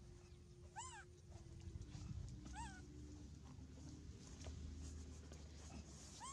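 Baby monkey giving short, high, faint calls, each rising then falling in pitch, three times.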